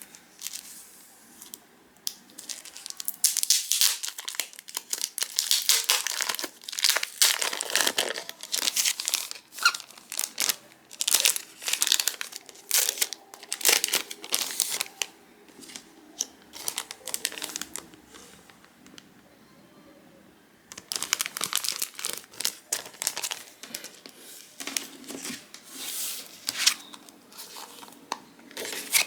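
Packaging crinkling and being torn, in irregular bursts of rustling and ripping, with a pause of a few seconds past the halfway point before the crinkling resumes.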